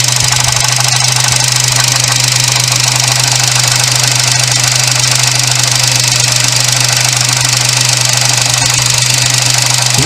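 Suzuki Jimny JB64's 660 cc turbo three-cylinder engine running steadily, with an abnormal noise from the alternator: its bearing is worn.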